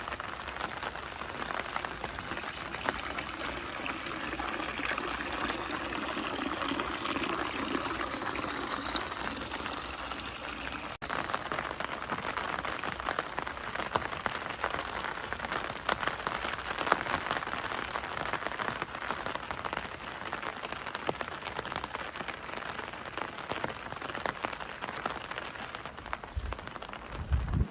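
Steady rain falling, with many small drop hits spattering close by; the sound breaks off for an instant about eleven seconds in.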